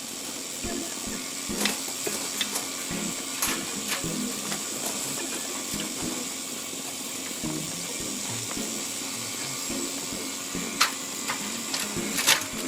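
Refrigerant vacuum pump running steadily while evacuating an air conditioner's line set, with a few sharp clicks, the loudest near the end.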